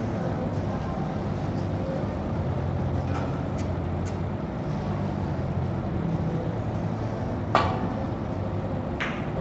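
Snooker cue tip striking the cue ball with one sharp click near the end, followed about a second and a half later by a second, softer click of ball on ball, over a steady low hum.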